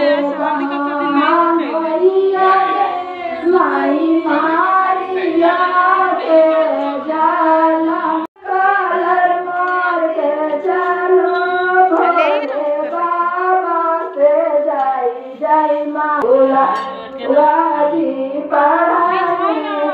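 Several women singing a traditional Bihari wedding folk song together, their voices overlapping. The sound cuts out abruptly for a moment about eight seconds in, then the singing carries on.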